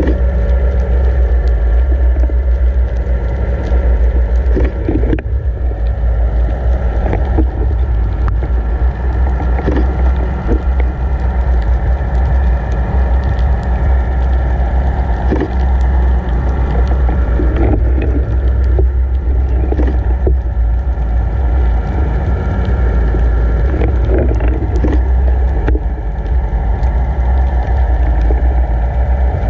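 Underwater sound from a camera towed behind a boat: a steady low rumble of water rushing past the camera housing, with the towing boat's engine and propeller carried through the water as a steady drone of several tones. Occasional faint knocks and clicks come through.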